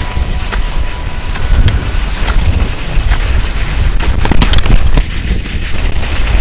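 Wind buffeting an action camera's microphone during a fast ski run, a heavy steady rumble, with the rush of skis on groomed snow and a few sharp clicks about four seconds in.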